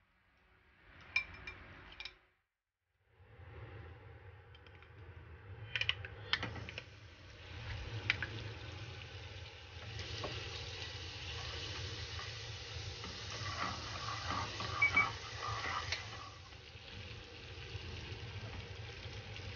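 Butter melting and sizzling in a frying pan, stirred with a wooden spoon that scrapes and taps on the pan, the sizzle growing louder about halfway through. Briefly at the start, a box grater scraping cheese.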